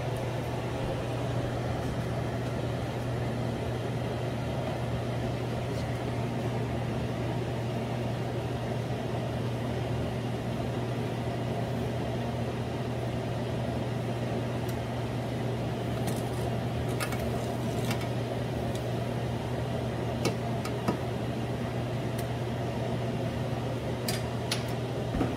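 Steady low hum of a kitchen vent fan, with a few light clicks of a utensil against a stainless steel skillet as butter is spread over hot cornbread, mostly in the second half.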